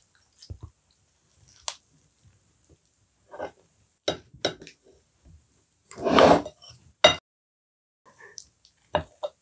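A person eating: spoon and chopsticks click against ceramic bowls, with soft chewing and one louder burst of slurping about six seconds in.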